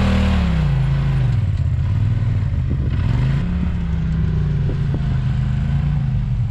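Side-by-side UTV engine under load on a steep dirt climb. Its revs drop in the first second, then rise and fall a few times, with a few short knocks.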